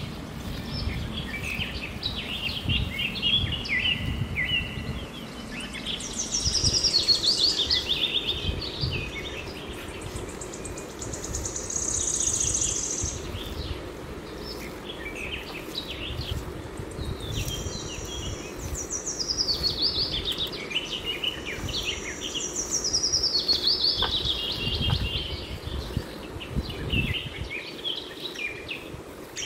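Birds singing: repeated runs of high notes falling in pitch, a few seconds apart, with some held high notes between them, over a low rumbling background.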